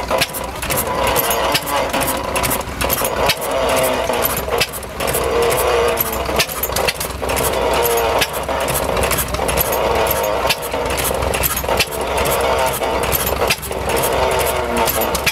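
Standard Pump & Engine Co vertical hit-and-miss gas engine running: sharp knocks at an uneven rhythm, roughly one to two a second, some much stronger than others, over a steady low hum.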